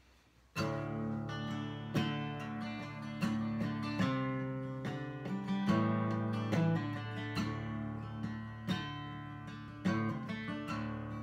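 Solo steel-string acoustic guitar playing a song's instrumental introduction, with chords and picked notes ringing on. It starts about half a second in.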